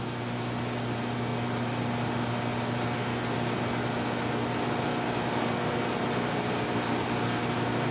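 Steady low electrical hum with a hiss over it, unchanging throughout, with no distinct clicks or impacts.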